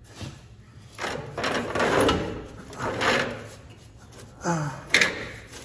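Scraping and sliding of parts being worked by hand, with a short voice sound and a sharp click near the end.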